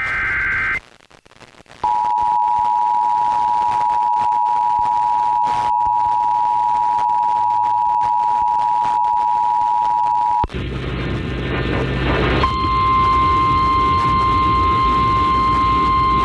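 Emergency Alert System alert opening: the last burst of the SAME data header, a short screeching digital warble, then the two-tone EAS attention signal held steady for about eight seconds. It cuts to a couple of seconds of static and hum, then the single-tone NOAA Weather Radio warning alarm, steady until the end.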